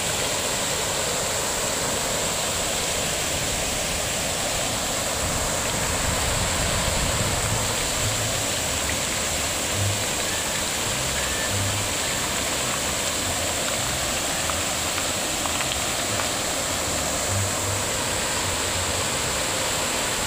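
Fountain water splashing and falling: jets arcing into a pool and a sheet of water spilling over a round basin, a steady rushing splash.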